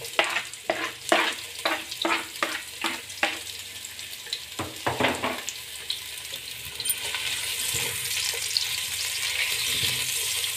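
A knife scraping and knocking on a wooden cutting board, about three strokes a second, as chopped onion is pushed off into the pot; a few scrapes of a spatula in the pot follow. From about seven seconds in, the onion starts sizzling in hot ghee while it is stirred.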